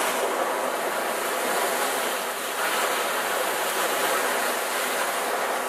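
Steady rush of sea water churning and splashing along the moving catamaran's hull.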